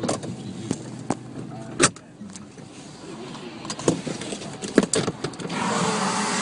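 Inside a car in a storm: scattered sharp clicks and knocks, then from about five and a half seconds in a louder steady rush of wind and tyre noise on the wet road.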